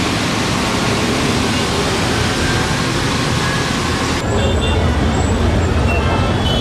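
City street traffic on a rain-wet road: vehicles passing with a steady hiss. About four seconds in it cuts to a duller street ambience with a low rumble and a few faint high chirps.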